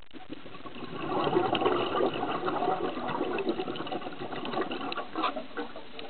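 A scuba diver's exhaled breath bubbling out of the regulator underwater: a crackling, gurgling rush of bubbles that starts about a second in and tails off near the end.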